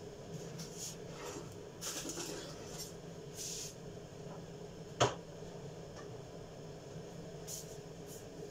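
Quiet kitchen room tone with a faint steady hum, broken by light rustling and scraping from ingredients and utensils being handled, and one sharp knock about five seconds in.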